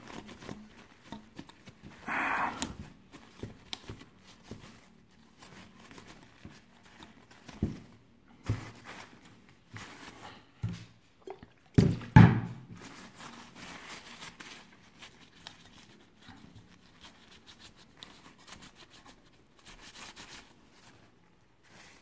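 Paper tissue rustling and crinkling as dust is wiped off the plastic blades of a small graphics-card cooling fan, with scattered knocks from handling the fan. The loudest knocks come about 8 and 12 seconds in.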